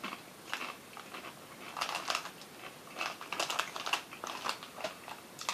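Irregular crisp crackles of a tortilla chip being crunched in the mouth, mixed with the crinkling of the foil chip bag being handled.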